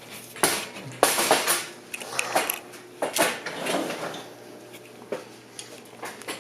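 Irregular clattering and rustling as objects are moved and handled, a string of sharp knocks spread over several seconds.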